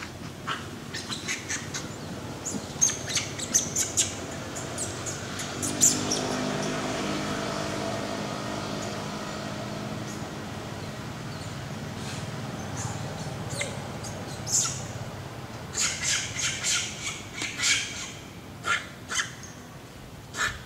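Sharp, high chirping calls in quick clusters, one run in the first few seconds and another in the last five seconds. Between them, a low hum of several steady tones swells about six seconds in and slowly fades.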